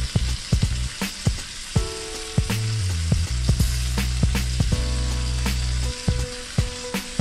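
Ribeye steak frying in butter with garlic and shallots in a stainless steel pan: a steady sizzle with frequent small pops. Background music with steady low notes plays beneath.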